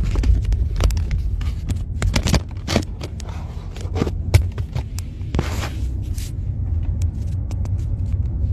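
Steady low road rumble inside a moving car's cabin, over handling noise from a phone being moved about against clothing: frequent short scrapes and knocks, with a longer scrape about five and a half seconds in.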